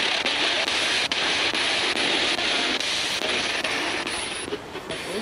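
Spirit box radio sweeping through stations: a steady hiss of radio static broken by faint clicks about twice a second as it jumps channel, thinning out about four and a half seconds in.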